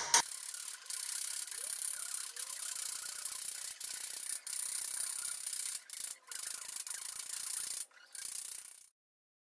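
A chipping hammer's pointed end scraping along a gas-welded steel seam: a steady rasping with a few short breaks, cutting off suddenly near the end.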